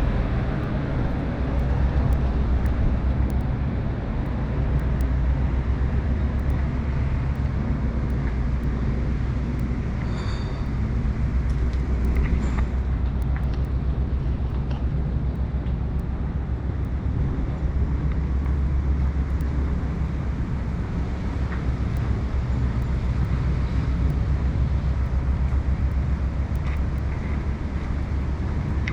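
Outdoor city street ambience: a steady low rumble like traffic, with scattered faint clicks and a brief high tone about ten seconds in.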